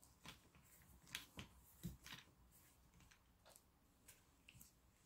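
Faint, irregular small clicks and rustles of hands working on a scale-model diorama, pressing and shaping its static grass.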